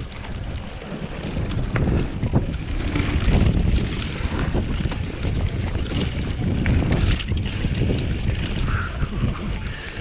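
Mountain bike rolling fast over a dirt forest trail: wind buffeting the action camera's microphone as a steady low rumble, with tyre noise and frequent short clicks and knocks from the bike over rough ground.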